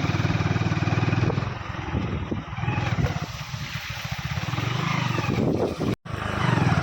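Motorcycle engine running at low speed with a steady, fast pulsing beat, quieter for a few seconds mid-way and cutting out briefly near the end.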